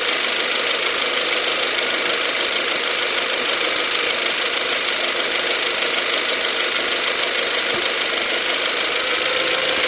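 Mk4 Golf GTI's turbocharged engine running at idle, heard close up in the engine bay as a steady, unbroken noise that stops suddenly at the very end.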